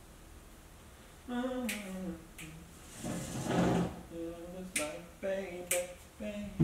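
A voice humming a wordless tune, with four sharp snaps scattered through it, after a little over a second of near silence.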